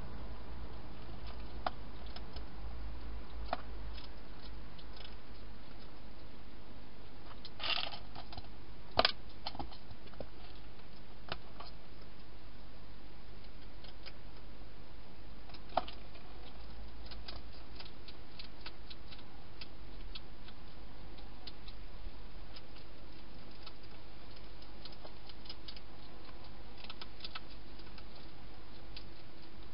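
A wild hedgehog eating inside a clear plastic feeding box: many small, irregular clicks and crunches, with a few louder knocks, the loudest about nine seconds in. A low steady hum runs underneath.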